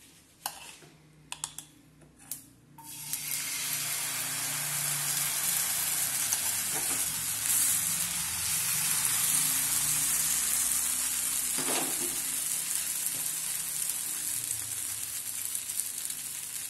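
A few light clicks, then about three seconds in a steady sizzle starts as instant dosa batter meets the hot nonstick pan and keeps frying.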